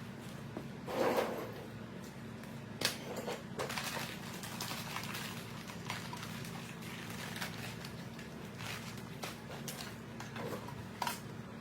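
Scattered light clicks and knocks of plastic grille and LED light parts being handled and fitted, over a steady low hum.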